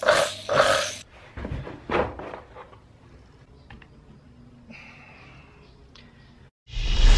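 Kärcher K4 pressure washer pump running with a rhythmic pulsing, about two or three beats a second; this pump leaks and loses pressure. The pulsing stops about a second in, a few knocks follow, and music starts loudly near the end.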